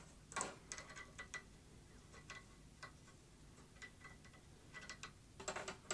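Faint, scattered light clicks and ticks of small metal parts being handled: screw-on PCB mounts being fitted to the aluminium board-holder rails of a Yihua 853A preheater. The clicks come a little closer together near the end.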